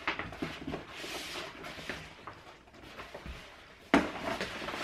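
Large vinyl banner being unfolded and spread out on a carpeted floor: rustling and crinkling of the stiff sheet, with a loud sharp crackle about four seconds in.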